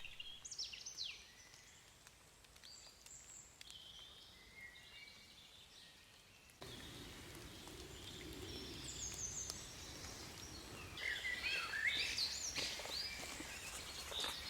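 Woodland songbirds singing, a string of short chirps and trills over faint background noise. About six and a half seconds in the background noise suddenly gets louder and the birdsong grows busier.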